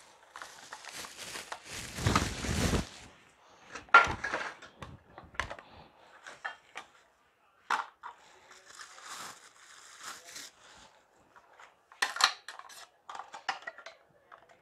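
Plastic bag and bubble wrap rustling and crinkling as a plastic rotary vegetable chopper is unwrapped, loudest in the first three seconds. Scattered clicks and knocks of its hard plastic parts being handled follow.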